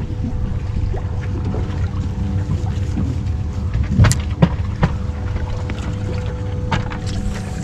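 Wind rumbling steadily on the microphone, with a constant hum underneath and a few sharp clicks about four to five seconds in.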